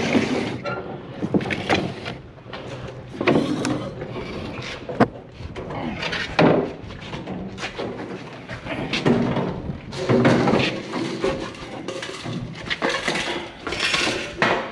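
Irregular knocks and clatter of hose and pipe fittings being handled and tried in place on a water truck's plumbing, over a steady low hum.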